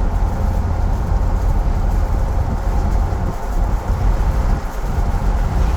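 Steady low rumble of a moving vehicle: engine and road noise, with no change in pace.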